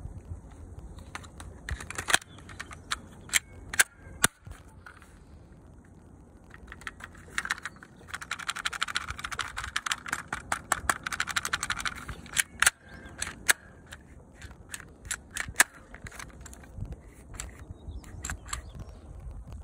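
Vektor CP1 airsoft gas pistol being handled: sharp metal and plastic clicks from its magazine and slide, a few of them louder. From about 8 to 12 seconds in there is a dense run of rapid clicking over a hiss.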